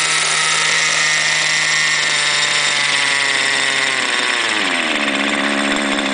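Thunder Tiger .50 R/C helicopter's glow-fuel two-stroke engine running on the ground with the main rotor spinning. About four seconds in, the engine note drops smoothly in pitch and settles to a lower, steady idle as the throttle comes back.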